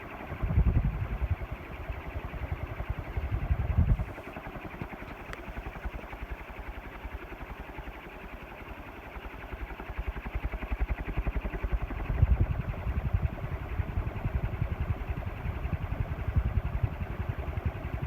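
Air Master Weather Beater 56-inch outdoor ceiling fan running on high with a steady whoosh of moving air. Its airflow buffets the microphone in low rumbling gusts, strongest over the first few seconds and again in the second half.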